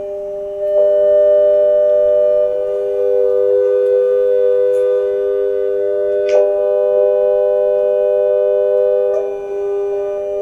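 Pure sine tones from many mobile phone speakers held steady as a chord: 400 Hz alone at first, then 500 and 600 Hz joining about a second in to form a 400–500–600 Hz major triad. The middle tone drops out near the end.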